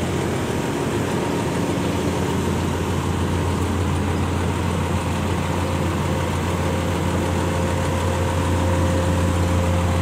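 Engine idling steadily: an even, unbroken low drone with a faint steady whine above it.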